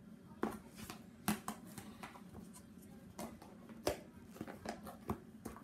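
Clear plastic slime container being handled close to the microphone: irregular clicks and knocks of plastic, the loudest about half a second, 1.3 s, 3.2 s, 3.9 s and 5.1 s in.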